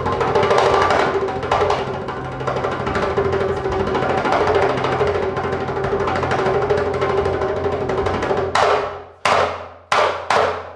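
Darbuka (goblet drum) played by hand in a dense, fast rhythm over a steady drone. About eight and a half seconds in the music drops away, leaving four separate drum strokes that ring out.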